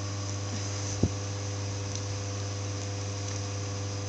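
A steady low hum with even hiss, and one short knock about a second in.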